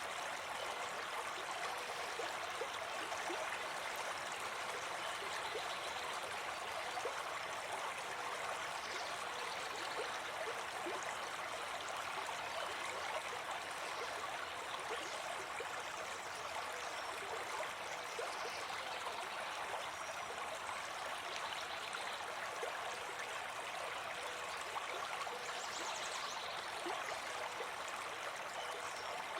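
A forest brook babbling and gurgling steadily over stones.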